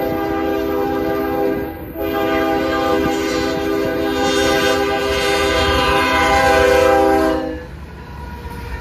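Diesel freight locomotive's multi-chime air horn sounding for a grade crossing. A blast ends just under two seconds in, then after a brief break a long blast is held for about five and a half seconds and cuts off as the locomotive reaches the crossing. The low rumble of the passing locomotives and freight cars follows.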